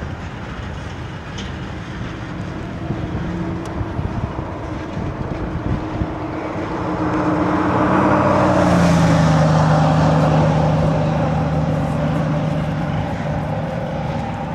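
A road vehicle passes close by, swelling to a peak about halfway through, its engine note dropping in pitch as it goes past, then fading. Under it runs the steady rumble of a CSX freight train of tank cars and boxcars rolling by.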